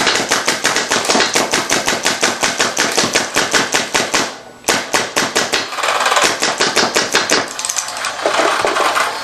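Dangerous Power G3 electronic paintball marker firing in rapid strings, about nine shots a second, with a brief break about four and a half seconds in before it fires again. It is shooting reusable reballs on low tank air, around 500 PSI.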